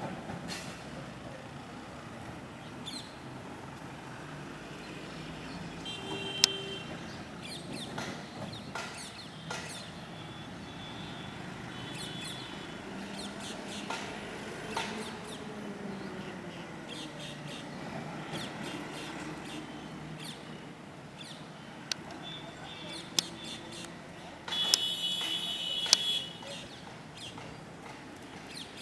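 Steady road traffic noise, with brief high calls of rose-ringed (Indian ring-necked) parakeets a few times and a louder cluster of calls near the end.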